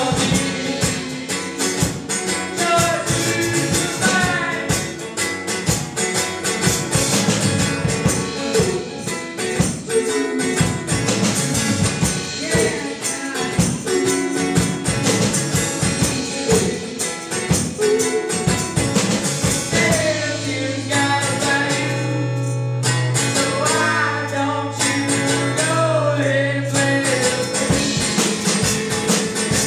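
Live indie folk-rock band playing a song: strummed acoustic guitar, drum kit and sung vocals from a woman and a man. The drums thin out for a few seconds about two-thirds of the way through while a low note holds.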